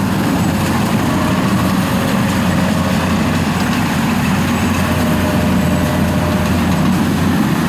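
Kubota DC-93 combine harvester's diesel engine and machinery running at a steady, unchanging drone while harvesting rice.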